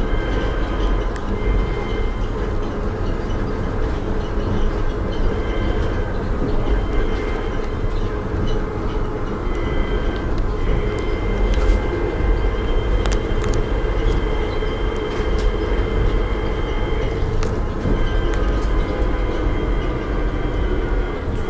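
Uijeongbu light-rail car, a rubber-tyred VAL 208, running between stations, heard from inside the cabin: a steady rumble with a constant high whine and a few light clicks around the middle.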